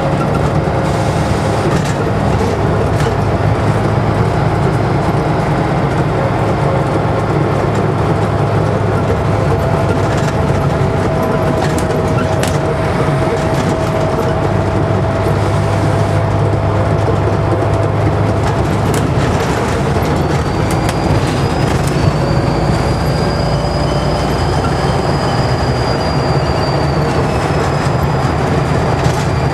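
Scania N94UD double-decker bus engine running under way, with a steady low drone. About two-thirds of the way through, a thin, high turbocharger whistle comes in and holds.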